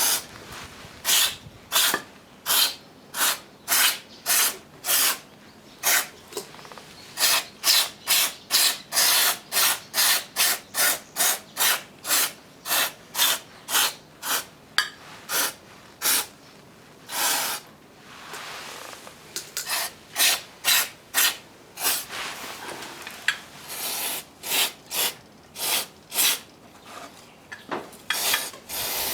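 Rasping rubbing strokes, as of scrubbing or sanding by hand, repeated about twice a second, with a break of a few seconds about two-thirds of the way through.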